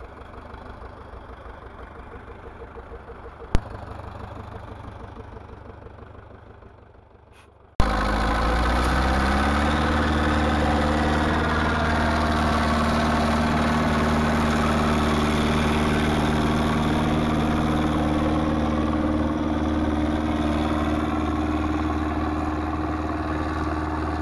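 A low, quieter rumble with a single click, fading away; then about 8 seconds in a Zetor 7245 tractor's four-cylinder diesel engine comes in loud, rises briefly in speed and settles into a steady run.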